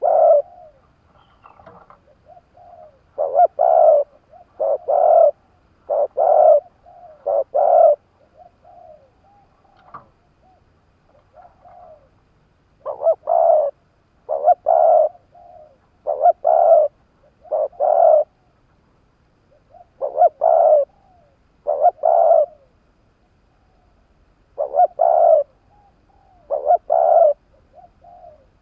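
Spotted dove (cu gáy) decoy bird cooing over and over: loud, low coos repeated in runs of a few notes each, with short pauses between the runs and softer coos in the gaps, calling to lure wild doves.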